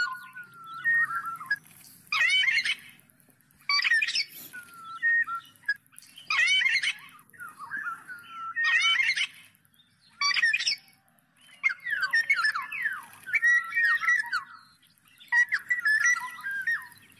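Black-naped orioles calling: a repeated series of harsh, buzzy calls about every one to two seconds, alternating with short clear whistled notes. From about twelve seconds in, the calls turn into a busier run of gliding whistles.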